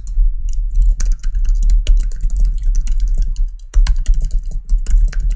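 Fast typing on a computer keyboard: a dense run of key clicks with a brief pause partway through.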